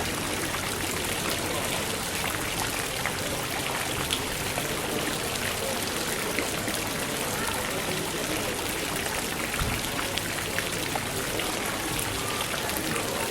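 Indoor fountain splashing steadily in a large supermarket hall, over a background of crowd murmur and scattered small clicks and clatters.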